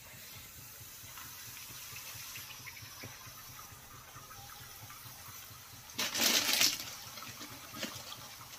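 Fafda strips sizzling as they fry in hot oil: a steady hiss, with a louder surge lasting under a second about six seconds in.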